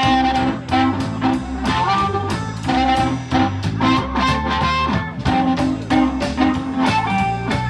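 Blues band playing an up-tempo swing-blues instrumental intro, with guitar lines over bass and drums keeping a steady, driving beat.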